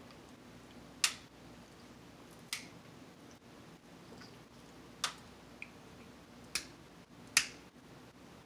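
Wet lip smacks from sucking crab seasoning off the fingers: five sharp pops a second or two apart over a faint room hum.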